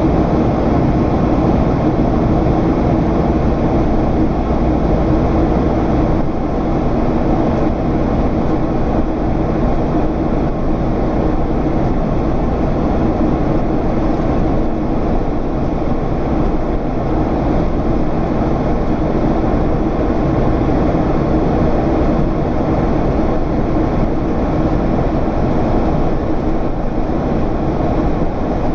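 Boeing 767's General Electric CF6 turbofan engines heard from inside the passenger cabin in flight: a steady, unbroken drone of engine noise and rushing air with a low hum.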